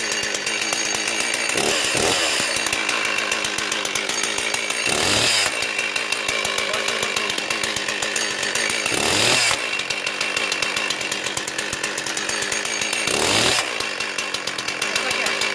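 Stihl two-stroke chainsaw engine running at idle, revved in four short blips a few seconds apart, with the chain brake engaged to hold the chain.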